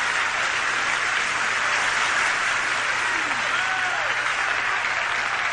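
Theatre audience applauding steadily after a song: a dense, even wash of clapping from a large crowd.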